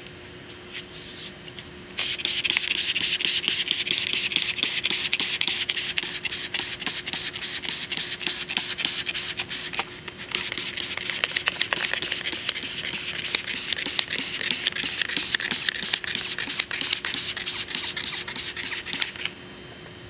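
Rapid hand scrubbing on an aircraft wing's surface to lift exhaust film: a dense scratching rub in two long bouts, starting about two seconds in, with a brief pause about halfway and stopping shortly before the end. A faint steady hum runs underneath.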